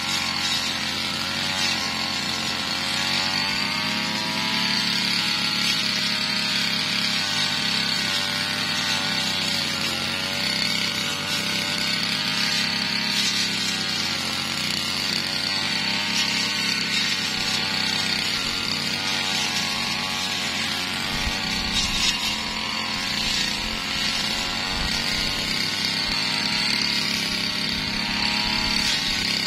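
Brush cutter engine running fast and continuously, its pitch dipping and recovering gently every few seconds.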